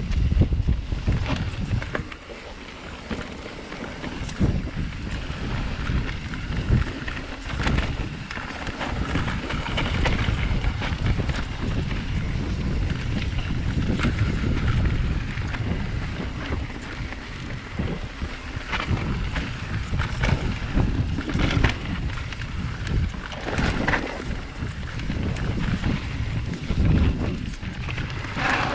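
Mountain bike riding down a dirt singletrack: wind rumbling on the camera microphone over the noise of the tyres on loose dirt, with sharp knocks and rattles from the bike over bumps now and then.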